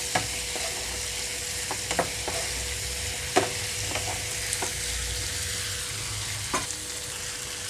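Boiled taro pieces frying in onion-tomato masala in a pan, with a steady sizzle. A spoon clinks against the pan now and then as the mixture is stirred.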